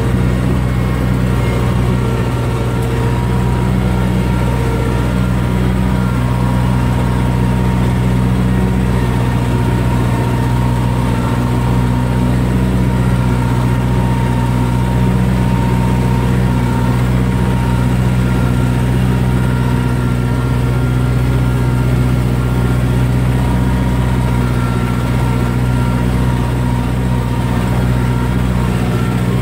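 Kubota M7060 tractor's four-cylinder turbo diesel engine running steadily at about 2000 rpm while working a field, heard from inside the cab.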